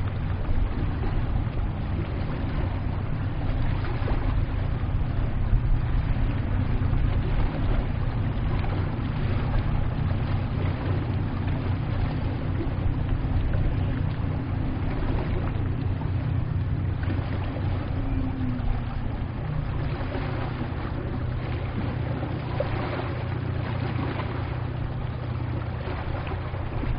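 A boat's engine running steadily, a low even drone under the wash of moving water.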